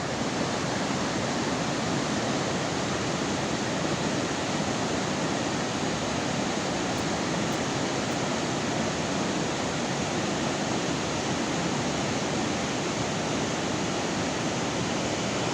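Fast-flowing water rushing steadily, an even hiss with no pauses or changes.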